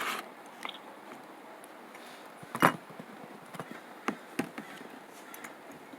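A few light clicks and taps of small metal carburetor parts and screws being handled during reassembly, with one sharper click about two and a half seconds in.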